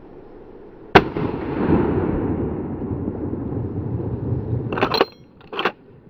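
A single rifle shot from a Blaser R93 in 9.3x62 about a second in, followed by a long rolling echo that fades over several seconds. Two short clattering noises follow near the end.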